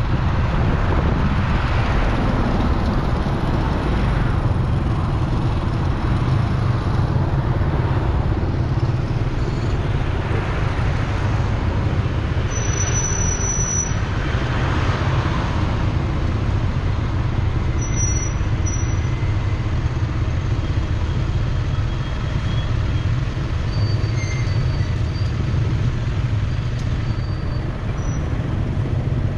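Steady low rumble of road traffic and motor vehicle noise, swelling a little twice, a couple of seconds in and again around the middle.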